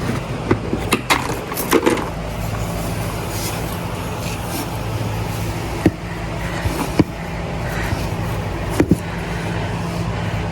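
Stick welding a cast iron exhaust manifold with nickel 99 rod: a steady arc crackle over the welder's hum, with a few sharp clicks near the middle and end.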